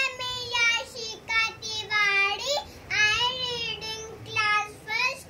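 A young girl singing in short phrases with held notes, in a high child's voice.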